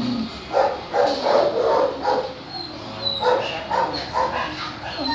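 Dogs barking in a run of short barks, a few a second.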